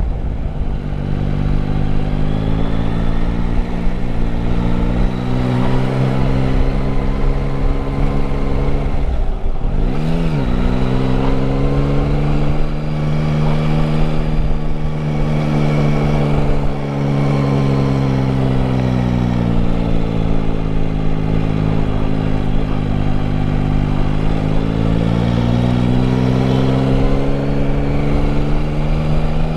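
Yamaha Tracer 9 GT's 890 cc three-cylinder engine running under way with wind noise on the microphone. Its pitch rises and falls with the throttle, with a sharp dip and quick return about ten seconds in.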